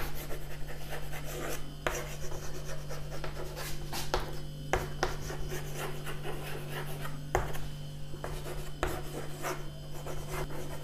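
Chalk scratching and tapping on a chalkboard as a sentence is written out in short irregular strokes, over a steady low hum.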